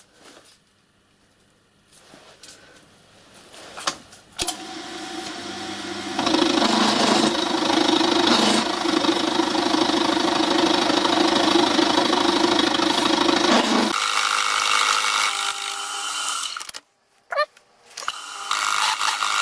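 Budget milling machine running with its cutter taking a cut across a solid cast-iron steam cylinder block: a few faint clicks at first, then a steady loud cutting noise that starts about four seconds in, fills the middle and changes tone near fourteen seconds. Near the end it drops out briefly and comes back.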